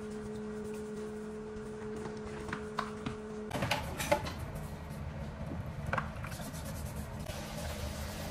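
Steady electrical hum, with scattered light knocks, clicks and rustling of things being handled on a kitchen counter.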